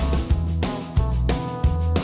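Background music: a steady drum beat with guitar.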